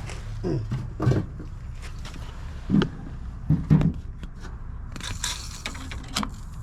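Scattered knocks and clunks of a can and tools being handled in a car door, with a short hiss of aerosol spray lubricant about five seconds in, aimed at greasing the window regulator mechanism. A steady low hum runs underneath.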